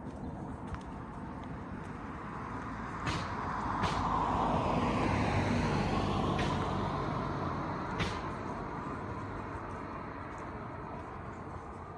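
A car driving past, its engine and tyre noise building over a few seconds, peaking about five seconds in and then fading away, its pitch falling as it goes by. A few sharp clicks sound over it.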